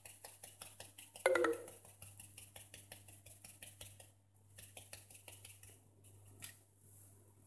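Plastic sieve shaken over a bowl to sift flour and cocoa, tapping and rattling in a quick rhythm of about five taps a second. About a second in there is one louder knock that rings briefly. The tapping thins out after about four seconds.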